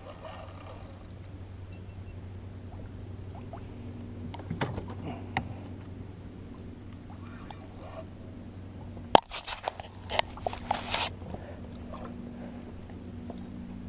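Gear being handled aboard a kayak: a few faint clicks, then a cluster of sharp knocks and clicks about nine seconds in, the first the loudest, over a low steady hum.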